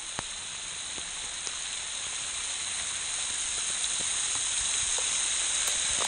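Waterfall spray falling like rain: a steady hiss of water coming down from a tall, thin fall. It grows gradually louder, with a few faint ticks.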